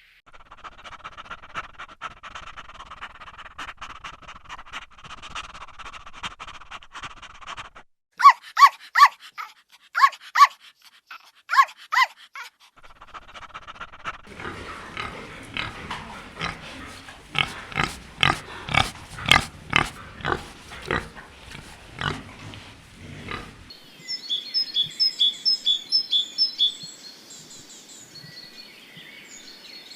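A run of different animal calls one after another: first a dense chorus, then several loud gliding calls, then a long series of rhythmic grunting pulses, and near the end a bird's rapid, evenly repeated high chirps.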